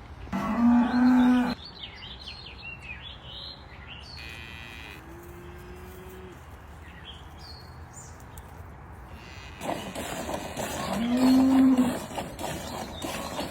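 A cow mooing three times: a loud call about a second long near the start, a fainter longer one in the middle, and another loud one near the end. Small birds chirp in between.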